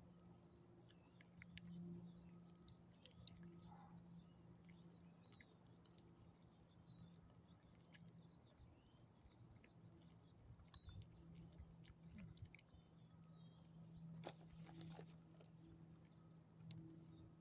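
Faint chewing and mouth clicks of a small dog eating bits of chicken from a hand, a little busier near the end. A steady low hum and a few faint bird chirps lie underneath.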